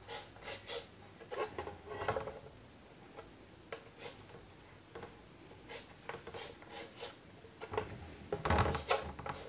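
Chalk scraping and tapping on a blackboard as straight lines are drawn along a wooden ruler and letters are written, with the ruler knocking against the board. The strokes come as short, scattered scrapes and clicks.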